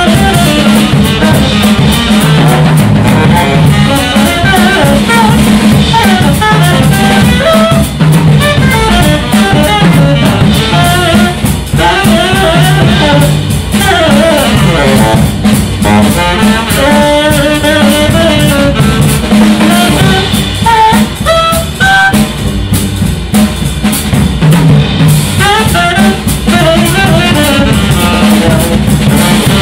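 Jazz trio playing live: saxophone melody lines over double bass and drum kit, with rimshots on the snare.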